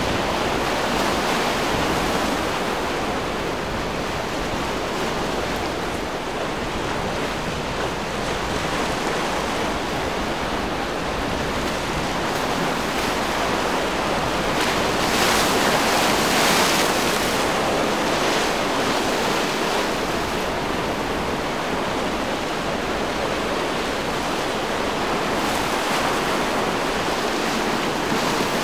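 Choppy sea and surf breaking, with wind on the microphone: a steady rush of water noise that swells louder about halfway through.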